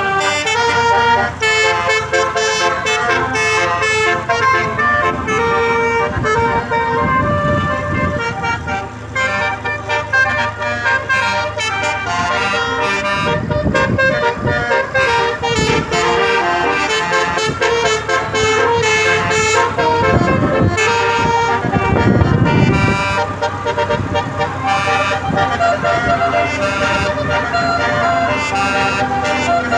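Indonesian bus telolet air horn playing a multi-tone melody, note after note in quick changing steps. Low rumbles rise and fall several times underneath.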